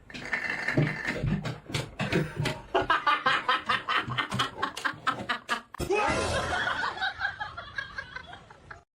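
A person laughing hard in rapid, repeated bursts, with a brief break about six seconds in before more laughter.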